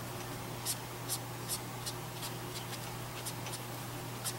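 Tombow brush marker tip drawn across cardstock in quick, short strokes, about ten light scratchy swishes as grass blades are coloured in.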